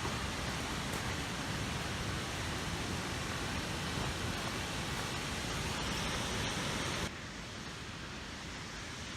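Steady rushing of a waterfall, an even roar of falling water that drops suddenly to a quieter level about seven seconds in.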